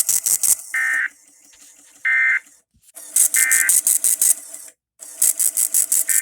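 Emergency Alert System end-of-message code: short bursts of screechy digital data tones about a second apart, the signal that the test broadcast is over. In between, a loud rhythmic buzzing of about six pulses a second comes and goes.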